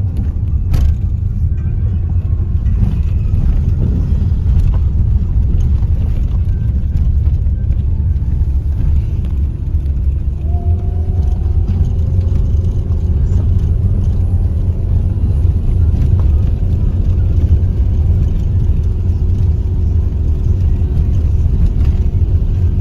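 A steady low rumble of a motor vehicle, with faint humming tones joining about ten seconds in.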